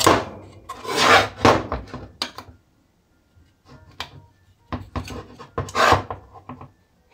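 Metal chainsaw crankcase scraping and sliding across a bench as it is handled and turned over, with clicks and knocks from the hex key and the case. The louder scrapes come about a second in and again near the end.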